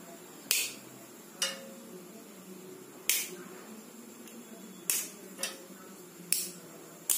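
A dry cinnamon stick snapped by hand into small pieces: about seven short, sharp cracks at irregular intervals.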